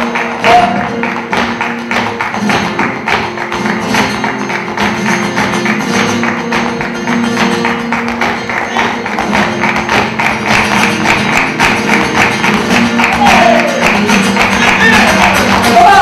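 Live flamenco music: guitar and violin over steady rhythmic hand clapping (palmas). A sliding melody line stands out near the end.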